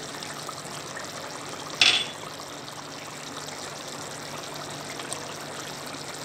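Mushroom curry gravy simmering in a kadai, a steady soft bubbling, with one sharp metallic clink about two seconds in.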